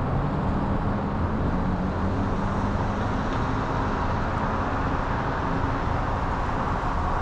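Steady street traffic: passing cars' engines and tyre noise with a low engine hum underneath.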